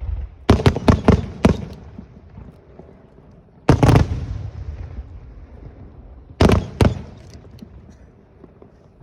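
Aerial fireworks shells bursting overhead: a quick run of several sharp bangs in the first second and a half, one big boom about halfway through that rumbles away, and two more bangs close together a little later.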